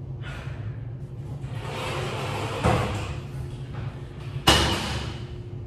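A restroom door swinging shut, with a knock a little before three seconds in and a louder thump at about four and a half seconds, over a steady low hum.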